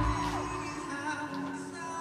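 Live concert music with singing, recorded on a phone in a venue; the heavy bass drops out right at the start, leaving a quieter sung passage.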